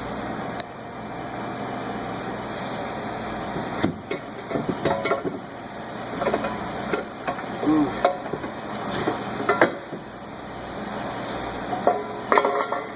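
Metal parts and tools clinking, knocking and scraping in scattered bursts over a steady background hiss, as an exhaust manifold is handled under the car.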